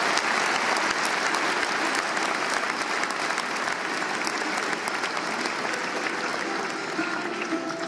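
Large concert audience applauding: dense, steady clapping that slowly thins out toward the end.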